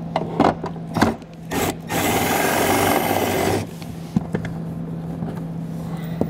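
Cordless drill driving a long extension and deep well socket, running once for about a second and a half to back out the 10 mm nut that holds the taillight to the body. Clicks and knocks of the tool and socket being handled come before it and near the end.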